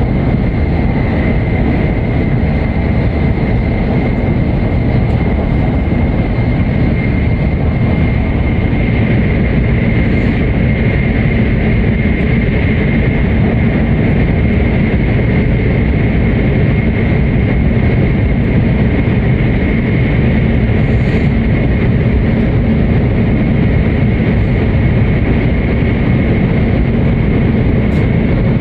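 E7/W7-series Hokuriku Shinkansen train heard from inside the passenger cabin, running at speed. A steady, loud rumble of wheels and running gear carries a thin, steady high whine above it.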